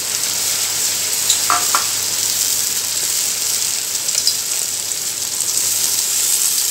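Onion-tomato masala sizzling in a hot non-stick kadhai as freshly added tomato purée is stirred into the browned onions with a silicone spatula: a steady frying sizzle.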